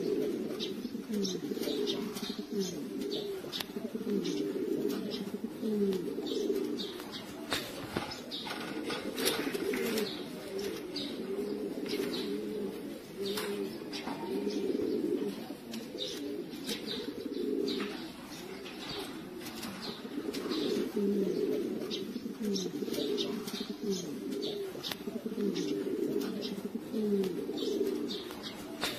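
Domestic pigeons cooing: many low, gliding coos overlap into a continuous chorus, with scattered short sharp clicks.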